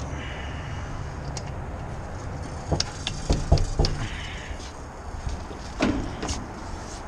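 Sharp clicks and knocks of tools and parts being handled during work on a rooftop heat pump's wiring, several in quick succession about three seconds in and a couple more near the end, over a steady low rumble.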